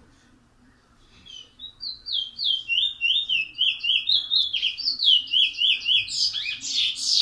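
Caged songbird singing: a long run of quick down-slurred whistled notes, about three a second, that start softly about a second in and grow loud, ending in a loud, rougher burst of song.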